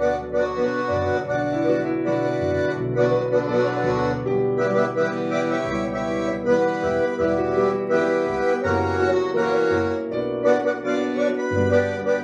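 Accordion playing an instrumental tune: sustained reed notes carrying a melody over bass notes that change about once a second.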